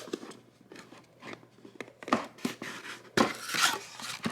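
Unboxing packaging being handled and opened: a few light clicks and taps, then a loud rustle of packaging about three seconds in.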